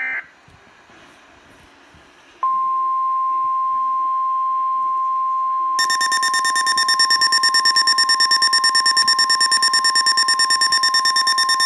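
Weatheradio Canada's warning alarm tone: a steady 1050 Hz tone that starts about two and a half seconds in, signalling that a weather warning bulletin follows. About three seconds later a rapid, shrill pulsing beep joins it, about ten pulses a second: the weather radio receiver's own alert alarm set off by the tone. A brief electronic burst sounds at the very start.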